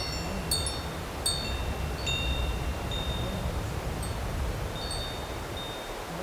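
Wind chimes tinkling: several struck, ringing high notes in the first two seconds, then fewer and more scattered, over a steady low rumble.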